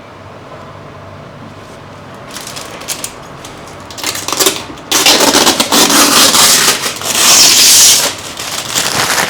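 Packaging being handled: irregular rustling and crackling that starts about two seconds in and grows loud in the second half.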